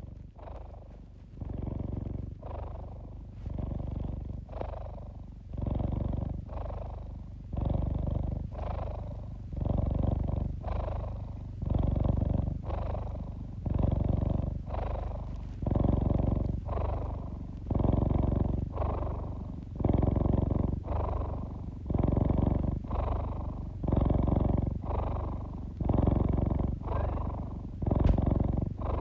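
Domestic tabby cat purring while kneading a blanket, a steady rumble that swells and eases about once a second with each breath in and out.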